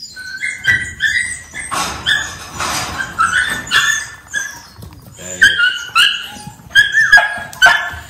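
Young stock-dog pups barking and yipping over and over in short, high-pitched yaps, some overlapping.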